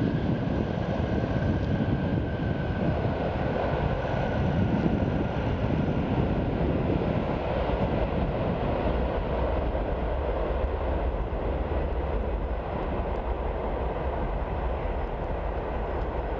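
Jet engine noise from a Boeing 747-400 rolling out just after touchdown: a steady rumble with a high whine that falls slowly over the first few seconds. The sound eases gradually as the airliner rolls away.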